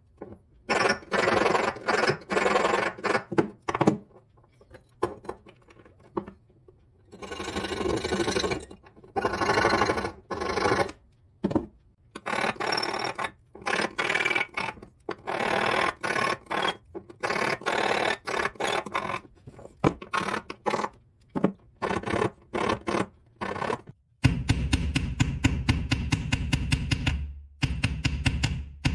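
Repeated scraping strokes of hand metalwork on a 925 silver ring, each about a second long with short pauses between them. Near the end the strokes give way to a faster, continuous run of rapid ticks.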